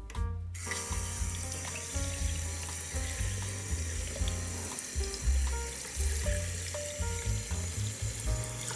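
Tap water running steadily onto broccoli florets in a stainless-steel mesh colander, starting about half a second in. Background music plays throughout.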